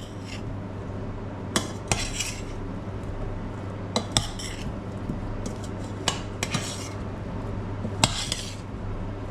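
A utensil clinking and knocking against a pot as boiled potatoes are mixed with olive oil, in irregular sharp clinks every second or two, some in quick pairs, each with a short ring.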